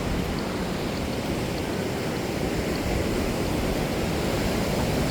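Steady rushing noise of ocean surf and wind, with no distinct events.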